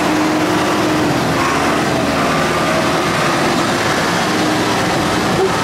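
John Deere 5510 tractor's diesel engine running steadily at high revs as the tractor works through deep mud, its pitch wavering slightly.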